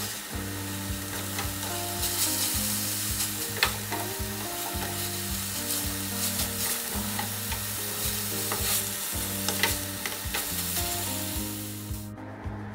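Grated coconut and chili spice paste sizzling in oil in a frying pan, stirred and scraped with a wooden spatula while it is fried until fairly dry for serundeng. The sizzling cuts off suddenly near the end.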